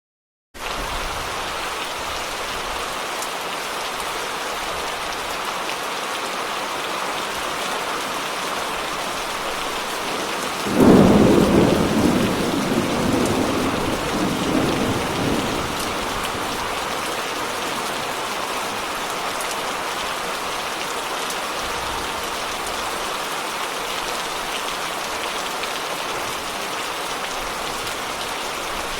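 Steady rain falling, with one thunderclap about eleven seconds in that rumbles away over several seconds.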